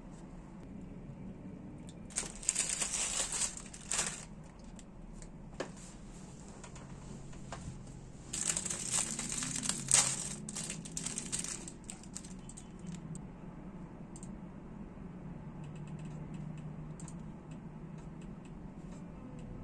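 Crinkling and rustling of a small wrapper handled and opened by hand, with sharp crackles, in two spells: about two seconds in and again from about eight seconds in.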